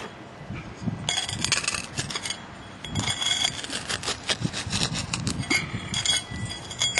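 Hand digger chopping and scraping into dry, gritty soil. A rapid run of scrapes and short clinks begins about a second in.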